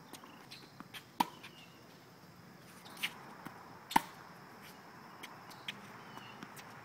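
Tennis rally on a hard court: sharp pops of the ball hitting racket strings and bouncing, a few seconds apart, the loudest a forehand strike about four seconds in.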